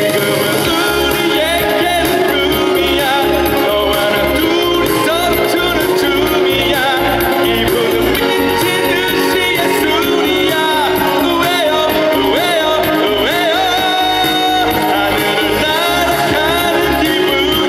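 Male singer singing live into a handheld microphone over music with a steady kick-drum beat, about two to three beats a second.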